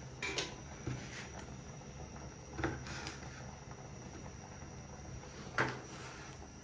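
A knife cutting pigeon meat on a plastic chopping board: a few scattered knocks and scrapes, the loudest near the end, over a low steady hum.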